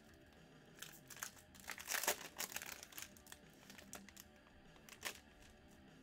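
Foil trading-card pack wrapper crinkling and crackling as it is torn open and pulled off the cards, in a run of short bursts that are loudest about two seconds in, with one more crackle about five seconds in. Faint background music runs underneath.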